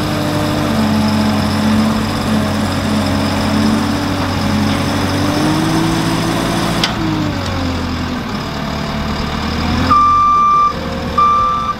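JCB Teleskid track loader's diesel engine running under load while its hydraulic auger bores a pier hole, the engine pitch rising and then falling back about two-thirds of the way through. Near the end a reversing alarm gives two long beeps.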